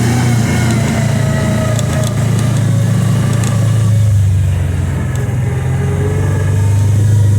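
Engine of a 2022 Kawasaki Teryx 800 side-by-side running steadily under way, a low drone that dips a little in pitch midway and picks up again near the end.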